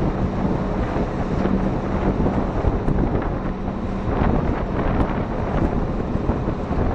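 Wind rushing over the microphone aboard a motorized outrigger boat (bangka) under way, over a steady low engine drone and water splashing off the outrigger float.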